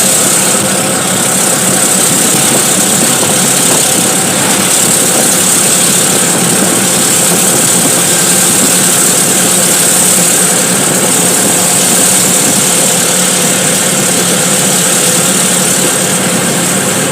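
Small engine of a CNG auto-rickshaw running steadily, loud and unchanging, with a constant rushing hiss over it.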